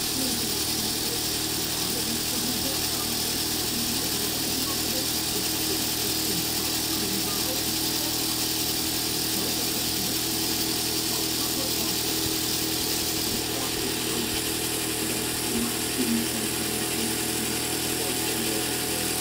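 Old Mamod toy steam engine running steadily under steam, driving a Meccano model threshing machine: a continuous mechanical whirr with a steady hiss.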